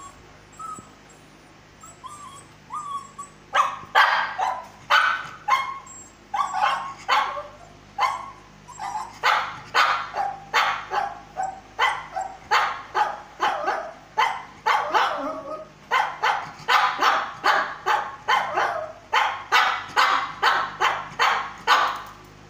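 Shih Tzu giving a few soft rising whines, then barking over and over from about three seconds in, nearly two barks a second.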